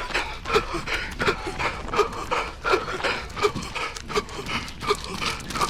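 A runner's heavy, wheezy panting in quick rhythmic breaths, nearly three a second, from hard effort near the end of a 5 km run.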